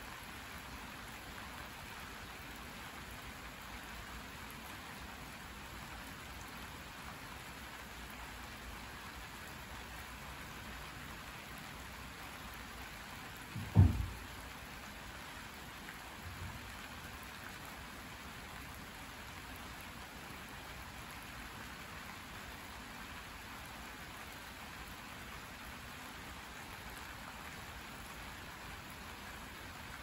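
Steady rain falling, an even hiss. About halfway through there is one short, loud, low thump, and a fainter one a couple of seconds after it.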